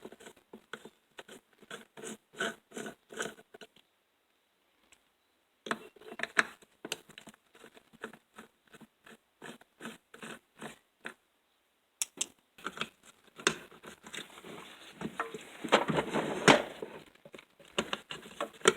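Hand tool loosening the two small nuts that hold the carburetor on a two-stroke weed eater engine: runs of quick, even clicks at about two or three a second, then a busier stretch of metal scraping and knocking near the end as the nuts come off.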